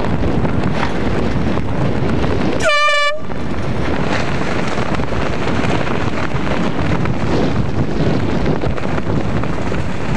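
A single horn blast of about half a second, nearly three seconds in, sounded as a racing yacht finishes and its time is taken. Heavy wind noise on the microphone runs under it.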